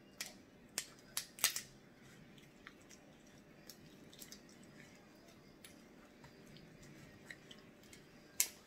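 Cooked lobster tail and crab shells being cracked and snapped apart by hand: a quick run of sharp cracks in the first second and a half, scattered smaller clicks, and one loud crack near the end.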